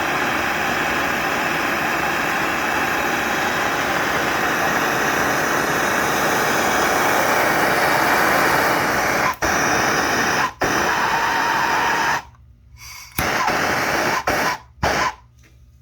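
Gas torch flame hissing steadily while brazing copper pipe fittings, cutting out briefly twice, then switching on and off in short bursts near the end.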